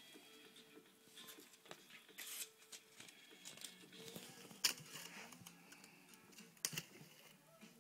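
A kitten batting and pouncing on a small crumpled ball on the floor: scattered light taps and rustles, the sharpest two about halfway through and near the end, over faint background music.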